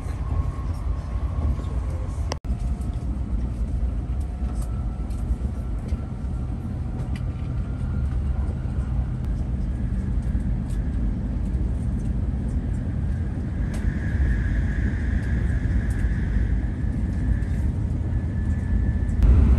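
Tokaido Shinkansen train running at speed, heard inside the passenger car: a steady low rumble with faint high whining tones above it. The sound drops out for an instant about two seconds in.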